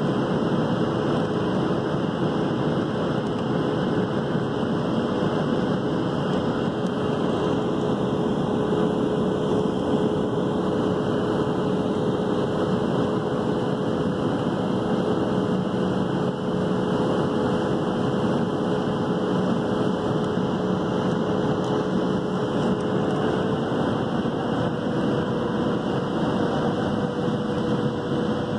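Cabin noise inside a Boeing 737-700 on approach: the steady rush of airflow with the hum of its CFM56-7 turbofan engines. A steady tone in the hum steps up slightly about 23 seconds in.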